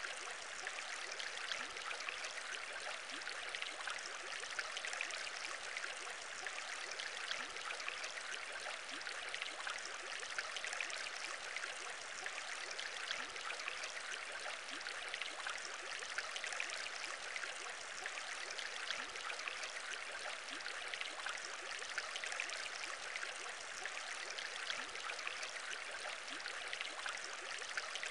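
Aquarium air bubbles running in a steady stream: dense, even bubbling with many small pops and short rising bloops.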